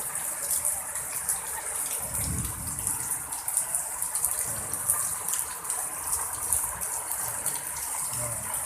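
Heavy rain pouring down in strong wind: a steady rushing hiss, with a brief low gust about two seconds in.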